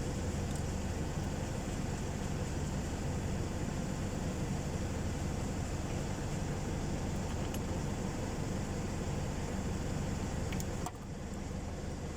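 Steady low engine-like hum, with a sudden drop in level about eleven seconds in.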